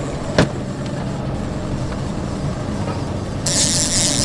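A motorboat under way: a steady rumble of engine and hull, with one sharp knock about half a second in. A loud hiss joins near the end.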